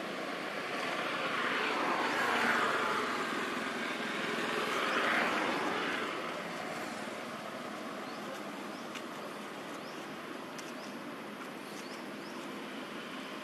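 Steady outdoor traffic-like noise. Two passing vehicles swell and fade in the first six seconds, then a level background hum remains.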